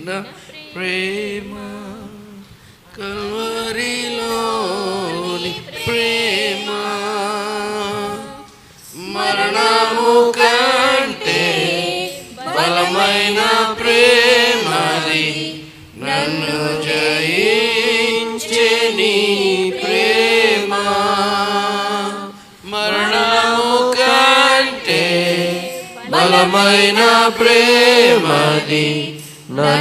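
A man singing a slow devotional hymn unaccompanied into a microphone, in phrases of a few seconds with long held notes and short pauses between them.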